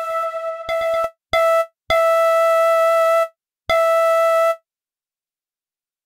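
UVI Falcon "Mayfield Flute" FM synth-flute preset playing the same single note over and over, some short and some held, with each note cutting off abruptly and no reverb tail because the reverb mix is turned to zero. The playing stops about four and a half seconds in.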